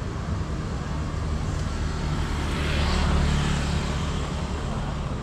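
Street traffic with a motor vehicle's engine passing close by, swelling to its loudest about three seconds in and then fading.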